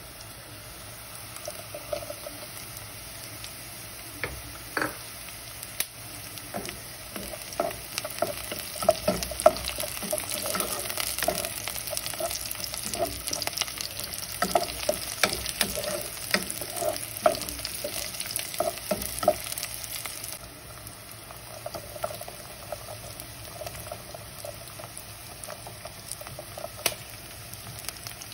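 Onions and garlic cloves frying in oil in a metal pot, sizzling steadily, while a wooden spoon stirs and scrapes through them with many small knocks against the pot. The stirring stops and the sizzle gets quieter about two-thirds of the way in.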